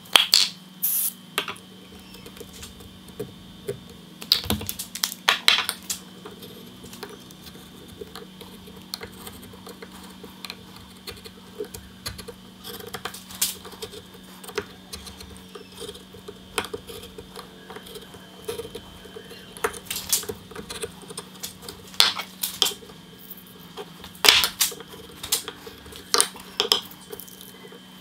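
Irregular light taps and clicks of wood and a metal hand tool as a glued cross-shaped wooden key is worked into its routed recess, over a steady low hum.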